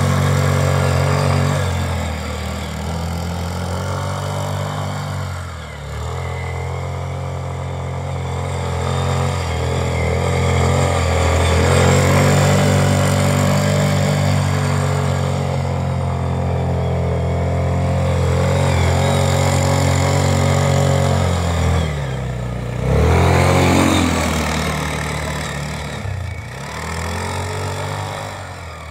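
ATV engine running under load as the quad is driven through snow, the revs easing off and climbing again several times, with a sharp rise in revs about two-thirds through.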